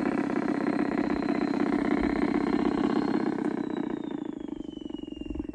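LGB side-rod diesel model locomotive (ÖBB 2095) running on garden-railway track: a thin electric motor whine over a fast rhythmic clatter of wheels and rods. About three and a half seconds in, the whine falls in pitch and the sound fades as the locomotive slows.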